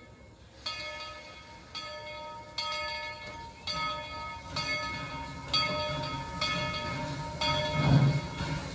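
Steam locomotive bell ringing steadily, about one stroke a second, with the low rumble of the moving train building beneath it from about halfway through.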